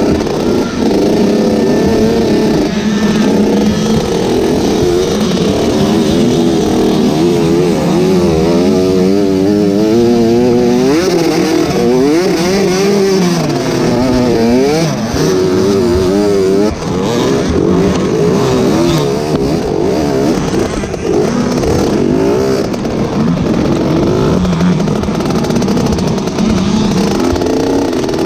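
Dirt bike engine heard from on board the bike while racing, its pitch rising and falling constantly with throttle and gear changes.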